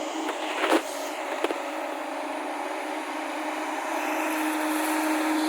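Diesel engine of an excavator loading a dump truck, running with a steady drone, with two sharp knocks in the first second and a half; the engine grows a little louder near the end.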